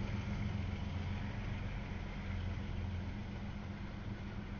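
Double-stack container freight train rolling past: a steady low rumble, easing off slightly.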